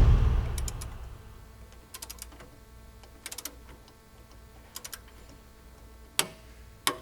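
A loud passage dying away over the first second, then several small clusters of light clicks and taps, with two sharper knocks near the end.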